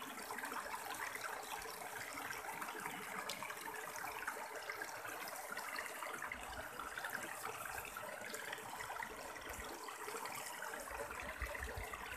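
Shallow stream water running and trickling over boulders, a steady even rush.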